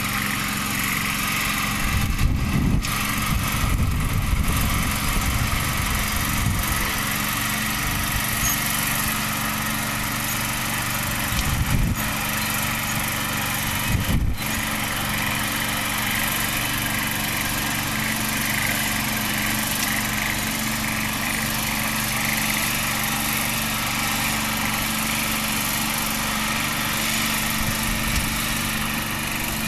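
Small engine of a riding rice transplanter running steadily as it plants. A few louder low rumbles come through in the first few seconds and twice around the middle.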